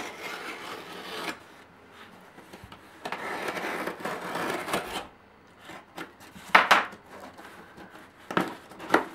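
A dull scalpel blade scraping along the taped seams of a cardboard box in two long strokes, barely cutting through. A few sharper rustles and knocks of the cardboard follow near the end.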